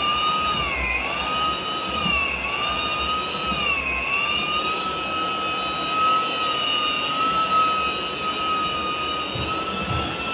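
Handheld electric floor sander running on a wood floor: a steady motor whine over a hiss. The whine dips in pitch several times in the first four seconds, then holds steady.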